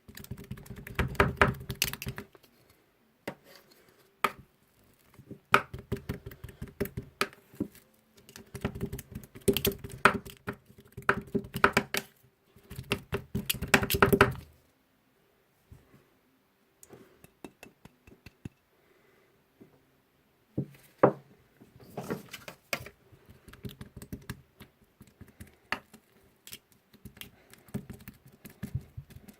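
Metal spatulas rapidly chopping and tapping on the cold steel plate of a rolled ice cream maker, working apple into the ice cream base, in bursts of quick clacks with short pauses.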